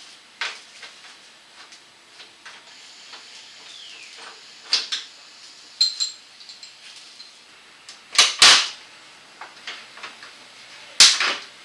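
Scattered light clicks and plastic handling noises, with loud sharp snaps, two close together about eight seconds in and one near the end, as the plastic ties and fasteners holding a pickup's grille are worked free.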